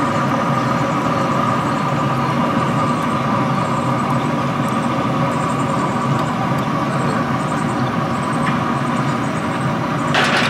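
A steady machine drone with a few fixed hum tones, running without change, and a short clatter near the end.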